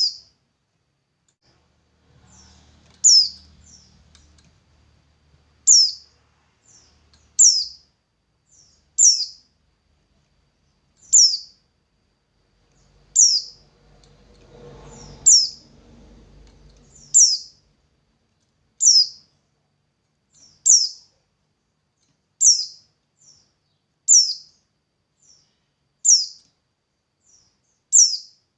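A songbird calling over and over: one sharp, high note sweeping downward, repeated about every two seconds, sometimes with a fainter short note just before it.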